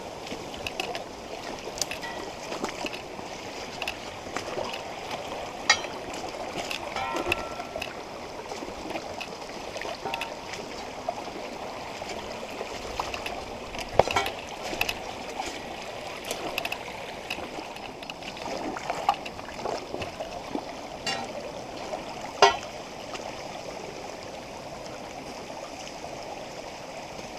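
A small spring-fed stream running steadily over rocks, with a few sharp knocks and splashes scattered through it, the loudest about halfway and about three quarters of the way in.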